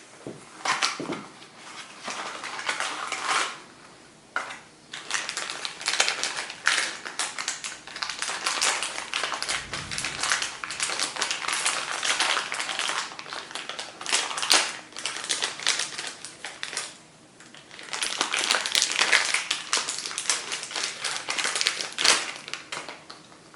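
Old manual typewriter clattering as it is worked: dense runs of rapid mechanical clacks, broken by a couple of short pauses.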